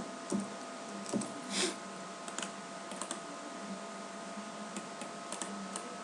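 Scattered, irregular clicks of computer keyboard keys, with one brief hiss about a second and a half in, over a steady electrical hum.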